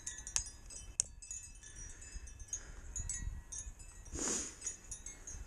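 Wind chimes tinkling throughout, with two sharp clicks within the first second and a brief noisy rush about four seconds in.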